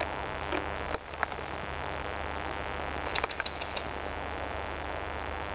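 Steady hiss of outdoor background noise on the microphone, with a couple of faint clicks about a second in and a quick run of faint clicks a little after three seconds in.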